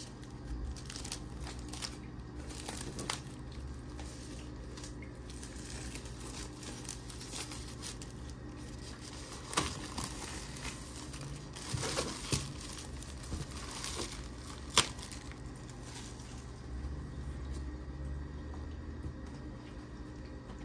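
Clear plastic shrink wrap being peeled off a cardboard laptop box, crinkling and crackling irregularly, with scattered taps from the box being handled and one sharp tap about fifteen seconds in. A low steady hum runs underneath.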